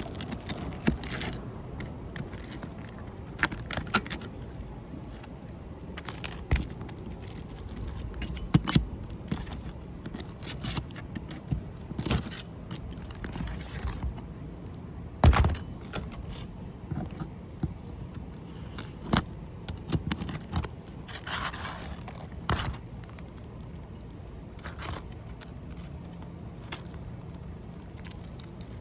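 Damaged ridge shingles being pulled up from a roof: irregular scraping with sharp knocks and clicks, the loudest knock about halfway through.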